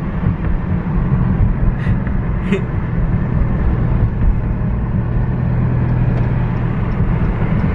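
Car cabin noise while driving: a steady low engine and road rumble with an even hum. Two faint clicks come about two seconds in.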